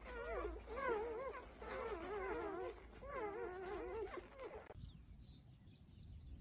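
Dog whining in several wavering, rising-and-falling calls, one after another, cut off abruptly about three-quarters of the way through; a faint low rumble follows.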